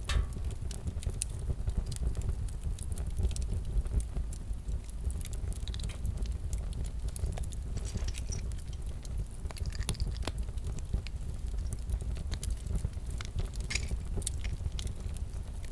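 Wood fire crackling in a fireplace: scattered sharp crackles and pops over a steady low rumble of flames.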